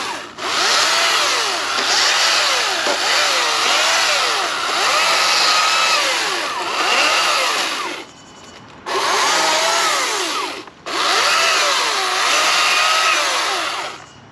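Greenworks Pro 60V 18-inch battery chainsaw cutting through sweetgum limbs: the electric motor's whine dips and recovers over and over as the chain bites into the wood. It stops about eight seconds in, starts again a second later, cuts out for a moment, and stops near the end.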